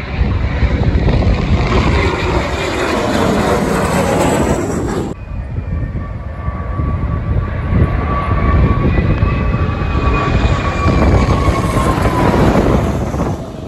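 Military aircraft engines passing close by, loud, with sweeping pitch glides as the aircraft goes past. An abrupt cut about five seconds in to another pass, where a steady high turbine whine sits over the engine noise and drops in pitch near the end.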